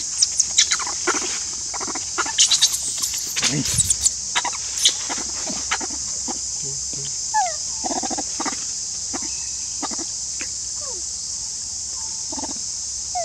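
Steady high drone of insects in the forest, with many sharp clicks in the first few seconds and a few short falling squeaks later on.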